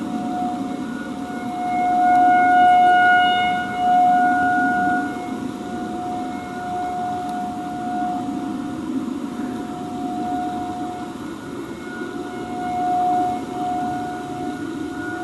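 Outdoor warning siren sounding one steady tone, its loudness swelling and falling away, loudest about two to four seconds in and again near the end.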